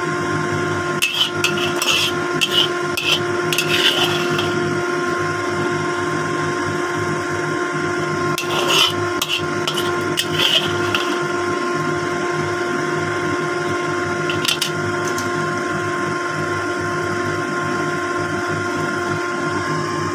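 Spatula scraping and clicking against a wok in several short bursts, one to four seconds in, again about nine to eleven seconds in, and briefly near fifteen seconds. Under it runs a steady hum with a few fixed tones.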